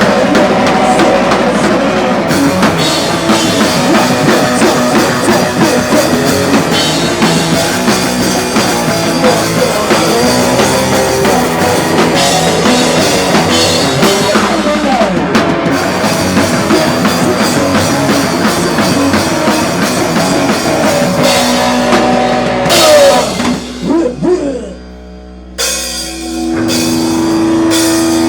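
Live rock band playing loud, with the drum kit, bass drum and cymbals prominent. About 24 seconds in the music breaks off briefly, then sustained guitar notes ring out again.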